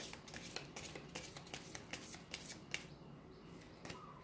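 A deck of tarot cards being shuffled by hand: a soft, irregular run of card clicks and slides that thins out after about three seconds.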